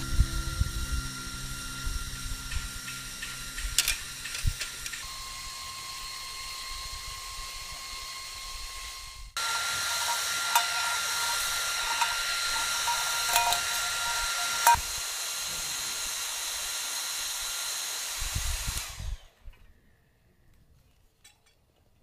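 GOOJODOQ handheld high-speed turbo fan running with a steady high whine over a rush of air, a bit loud. It steps up to a louder speed about nine seconds in, with a few sharp clicks, and spins down and stops near the end.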